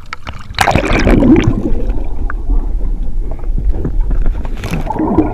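Water splashing as the camera goes under about half a second in, then loud, muffled underwater churning and gurgling of shallow estuary water around the camera.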